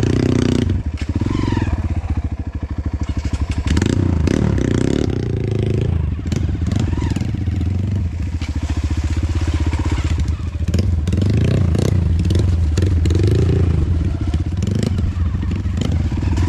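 Dirt bike's single-cylinder engine running steadily under way, its revs rising and falling, with scattered clatter and knocks from the bike over rough ground.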